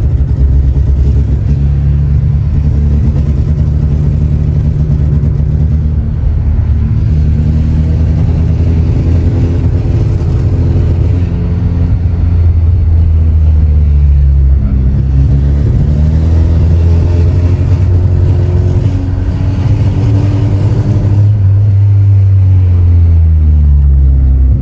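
Peugeot 106 Sport's engine heard from inside the cabin while driving, its revs rising and falling several times. It is running rough, not smoothly, fitted with a cone air filter and with its two temperature sensors bridged.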